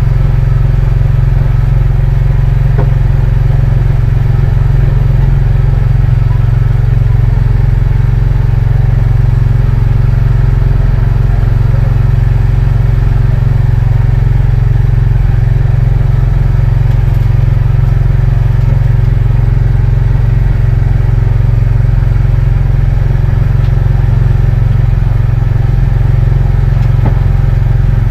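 Fishing boat's engine running steadily at one speed, a loud low engine note that does not change.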